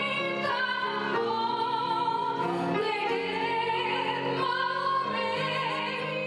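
A woman singing a slow wedding congratulatory song into a microphone in a classical, operatic style, holding long notes with vibrato over instrumental accompaniment.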